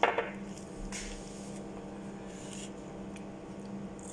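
A steady low electrical hum, as from a kitchen appliance, with a few faint clicks and small handling sounds. A short closed-mouth vocal "mm" comes right at the start.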